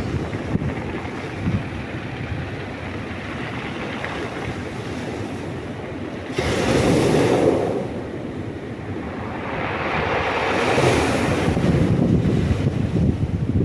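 Sea waves washing onto the shore, a steady surf noise with two louder surges of breaking water, one about six seconds in and another from about ten and a half seconds. Wind rumbles on the microphone underneath.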